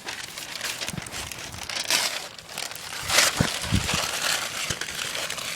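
Small campfire crackling, with irregular crinkling and rustling noises and louder bursts about two and three seconds in.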